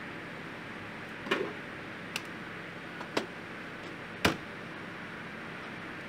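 A few short, sharp clicks and knocks from the Ford F-250 pickup's cab door being opened and then shut, the loudest knock about four seconds in, over a steady background hiss.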